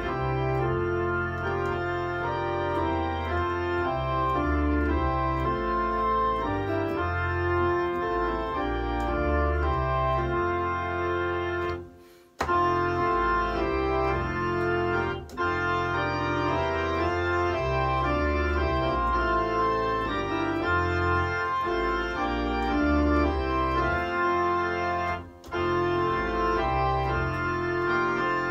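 Electronic church organ playing a hymn tune in full sustained chords over a pedal bass line. The sound stops briefly about twelve seconds in, with shorter breaks between phrases later on.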